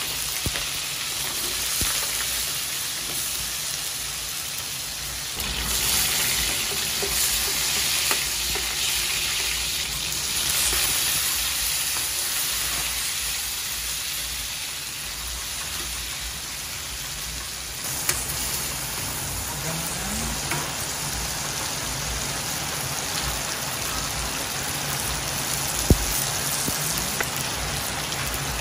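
Pork cubes sizzling as they fry in oil in an aluminium wok, later sautéing with onion, tomato and bell pepper, the sizzle growing louder about a third of the way in. A metal ladle stirs and scrapes, with a few sharp knocks against the pan, the loudest near the end.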